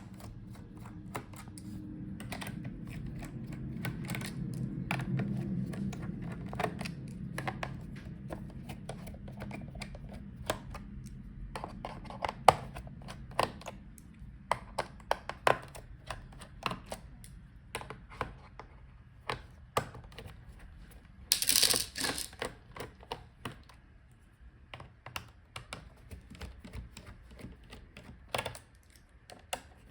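Screws being taken out of a plastic laptop bottom case: scattered small clicks and taps of the screwdriver and screws against the case. A low hum runs through the first half and fades, and a brief louder rushing noise comes about two-thirds of the way through.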